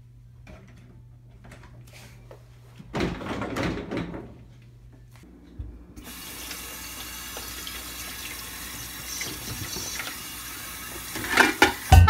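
Kitchen tap running steadily into a stainless steel sink full of dishes as they are rinsed, starting about six seconds in, with a clatter of dishes near the end. Before the water, a low steady hum and a brief louder rush of noise.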